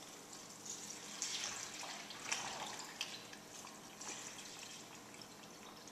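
Water poured from metal water bottles into a blender jar: faint, uneven splashing and trickling.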